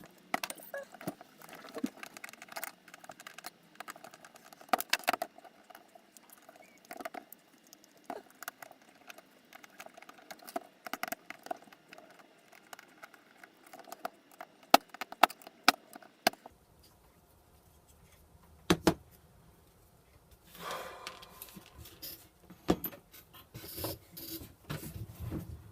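Small metal parts and tools clicking, clinking and scraping in irregular bursts as a servo robot arm kit is dismantled to get its bolts and servo out again. A few louder knocks stand out, and there is a quieter lull partway through.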